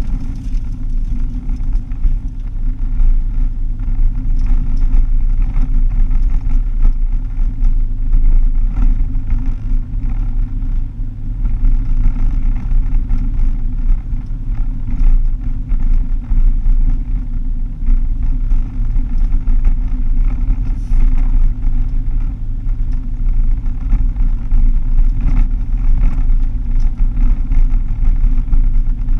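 Car driving on an unsealed dirt road, heard from inside the cabin: a steady low engine drone with heavy tyre and road rumble and frequent small rattles and clicks.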